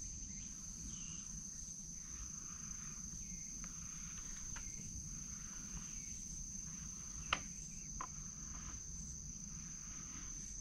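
Faint, steady high-pitched insect trill over a low background rumble, with a sharp click about seven seconds in and a lighter one just after.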